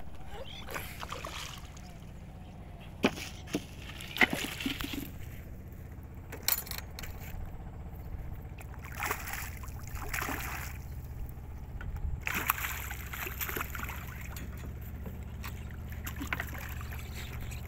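Water splashing and sloshing as a hooked fish thrashes at the surface beside a boat and is worked into a landing net, in irregular bursts. A few sharp knocks come about three to four seconds in.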